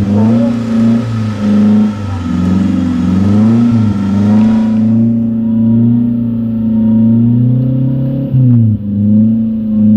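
Off-road 4x4's engine running hard under load as the truck crawls through deep mud, revs wavering up and down, dipping briefly near the end and picking up again.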